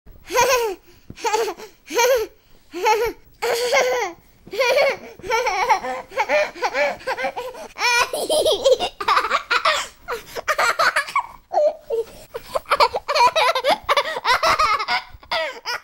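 A person laughing, first in short separate peals about once a second, then in longer unbroken runs of laughter.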